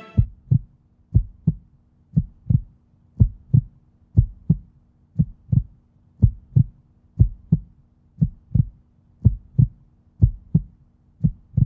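Heartbeat sound effect: pairs of low thumps, lub-dub, repeating about once a second at an even pace, over a faint steady low hum.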